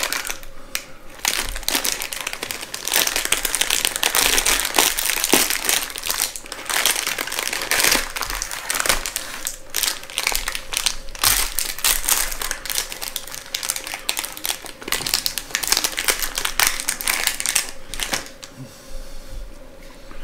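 Crinkly plastic wrapper of a cheese-cracker packet being handled and opened by hand, crackling almost without pause until it quietens near the end.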